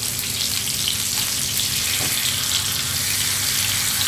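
Marinated surmai (king mackerel) steaks sizzling steadily in hot oil in a pan over a high flame, with a constant spatter of small crackles.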